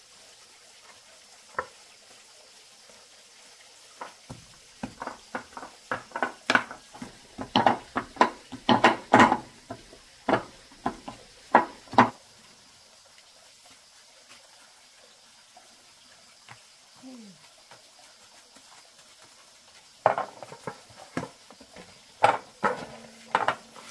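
Kitchen utensils and cookware clacking and knocking: irregular runs of sharp knocks, several a second, for about eight seconds. After a quiet stretch they start again near the end.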